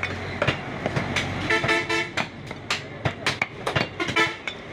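Butcher's knife chopping beef on a wooden block, with repeated sharp knocks at irregular intervals. A horn toots twice, about one and a half seconds in and again near four seconds, each for about half a second.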